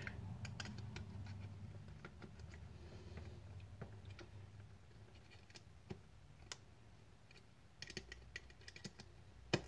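Faint scraping and small clicks of a utility knife blade slicing the seal on a cardboard phone box, with the box being handled, and a sharper click near the end.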